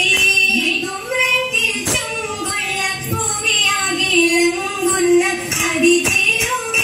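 Women singing an Oppana (Mappila) song together, with sharp rhythmic hand claps cutting through the singing.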